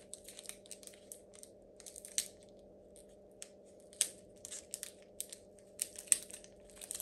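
Foil wrapper of a Pokémon card booster pack crinkling and crackling as it is torn open and handled, with irregular sharp crackles and a few louder clicks, over a faint steady hum.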